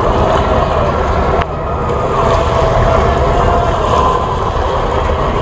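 Engines of parade boats running steadily, with wind rumbling on the microphone.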